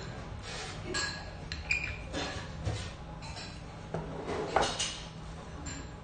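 Spoon and utensils clinking and scraping against a small bowl and tableware while eating, a scatter of separate light clinks with the sharpest one about four and a half seconds in.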